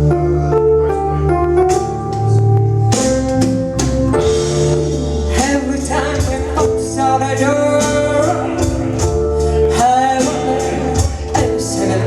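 Music: a song with a singing voice over a steady percussion beat and sustained instrumental notes.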